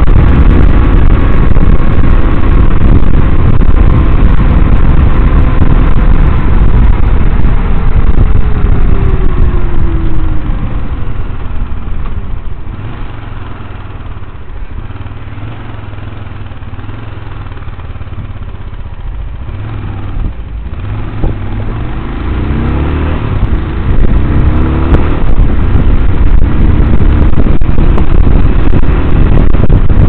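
Motorcycle riding in traffic, heard through heavy wind rumble on a helmet-mounted camera microphone. The engine's pitch falls as the bike slows, the sound drops for several seconds at low speed, then the engine rises again as it accelerates near the end.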